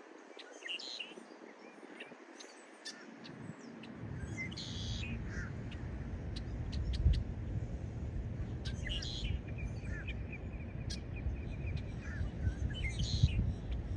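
Wild birds chirping and calling in short scattered notes. A low, uneven rumble comes in about four seconds in and stays underneath.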